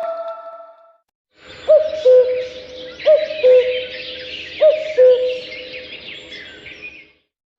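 Huawei EMUI 12 birdsong ringtone: high chirping and twittering under a low two-note call whose second note falls below the first, heard three times. It starts about a second and a half in and stops shortly before the end.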